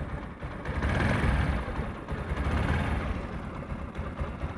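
TVS Apache RTR 160 4V's single-cylinder engine running, swelling louder about a second in and again around three seconds. It has a dull thudding note ('dhop-dhop') instead of the crisp, raspy sound the owner says a 4V engine should have.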